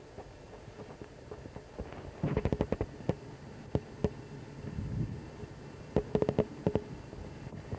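Rapid sharp clicks and knocks in two bursts about four seconds apart, with a few single clicks between, over a faint steady hiss.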